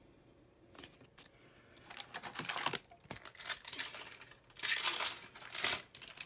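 Trading-card pack wrapper being torn open and crinkled by hand: a few light clicks, then from about two seconds in, repeated crinkling bursts, loudest near the end.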